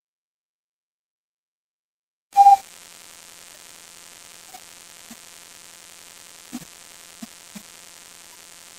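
A sudden loud click with a brief beep about two seconds in, then a steady hiss with electrical hum and a few faint ticks, like an open recording line with nothing being said; it cuts off suddenly at the end.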